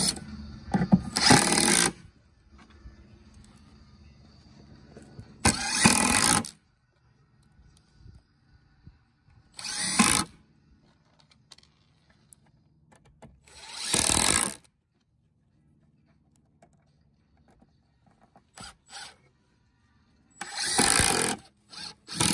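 Cordless impact driver driving screws into 3/4-inch plywood, in about six short runs of about a second each, several seconds apart.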